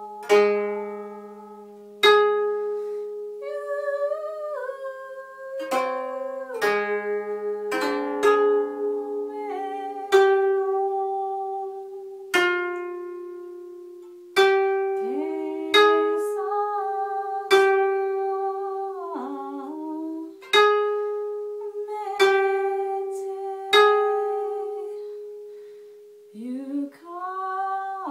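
Koto played with single plucked notes, about one every one to two seconds, each ringing out and fading. A woman's voice sings along in places, its line wavering and sliding between the notes. The plucks are the loudest sounds.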